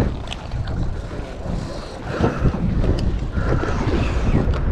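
Wind buffeting the microphone aboard a fishing boat at sea, a steady low rumble with no clear single event.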